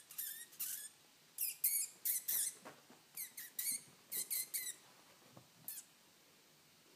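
Short high-pitched squeaky whistles in quick pairs and triplets, about a dozen in all, each dipping slightly in pitch. They stop shortly before the end.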